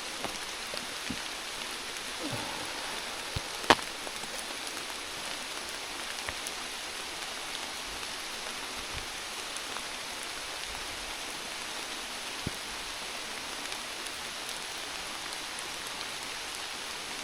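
Steady rain falling on the forest, an even patter of drops. One sharp tap stands out a little under four seconds in.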